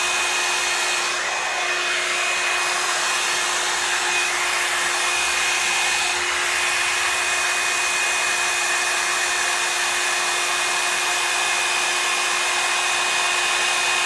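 Revlon Salon paddle-brush hair dryer and styler running steadily: a constant rush of air with a steady high motor whine.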